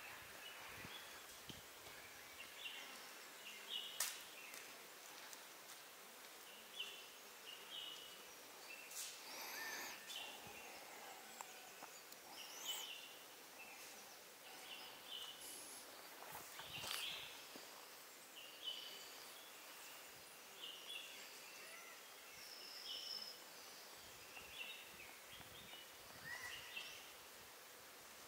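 Quiet forest ambience with short bird chirps repeating throughout, and a sharp click about four seconds in.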